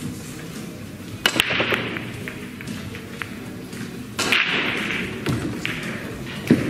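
Pool hall sounds: a sharp click of pool balls about a second in and another about four seconds in, each followed by a short rush of noise, then a thump near the end, over background music.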